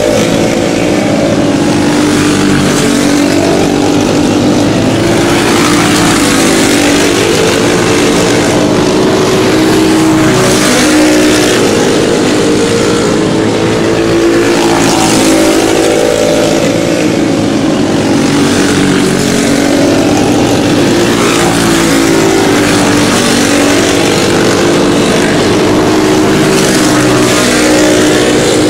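A pack of racing karts with single-cylinder four-stroke Briggs & Stratton Animal engines running together. The engine pitch repeatedly dips and climbs again every few seconds as the karts slow for the turns and accelerate out of them.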